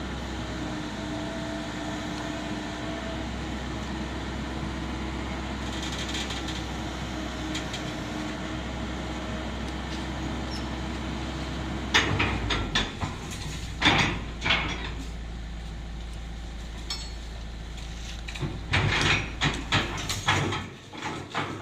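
Small excavator's diesel engine running steadily, then, from about halfway through, a run of loud metallic clanks and knocks; the low engine drone falls away near the end.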